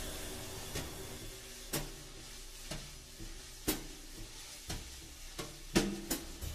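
Sparse, quiet soundtrack music: sharp knocks about once a second, with low held tones ringing between them.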